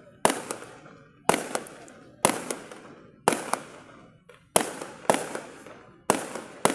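Firework shells bursting in quick succession, a sharp bang about once a second, each followed by a quick second pop and a crackling tail that fades.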